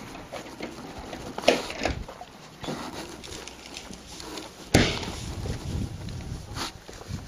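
A few sharp knocks, the loudest about halfway through, and from then on wind rumbling on the microphone.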